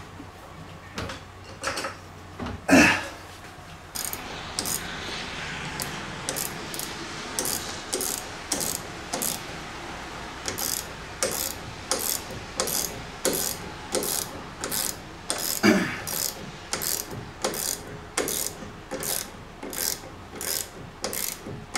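Ratchet wrench clicking in short, repeated strokes, about two a second, as the nut on a shock absorber's upper mounting stud is tightened down onto its rubber bushing. Two louder knocks stand out, a few seconds in and about two-thirds of the way through.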